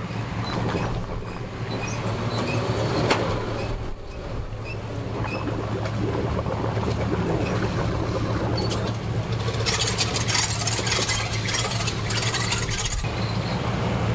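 Bass boat's outboard motor running in gear as the boat is powered onto its trailer, a steady low hum with the propeller churning the water. From about nine seconds in there are a few seconds of louder hissing and splashing water.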